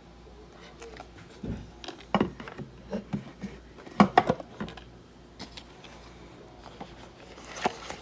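Handling sounds: a scattered series of light clicks, taps and knocks of small objects being picked up and set down, with a cluster of sharper knocks about four seconds in and another near the end.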